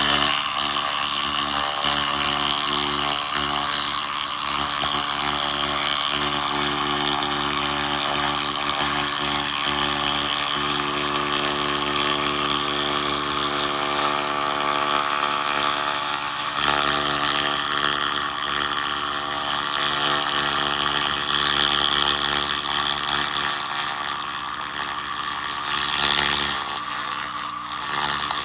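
SFX 2000 laser rust remover running on rusty metal: a steady hissing buzz over the machine's constant hum, with the low hum cutting out briefly twice.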